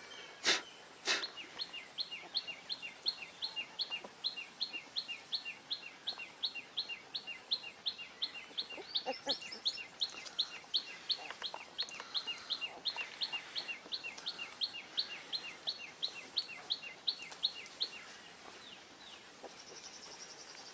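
A bird calling one short, dropping chirp over and over, about three a second, steady and even, stopping a few seconds before the end. A faint, high, on-off pulsing tone runs alongside it, and a few sharp clicks come at the very start.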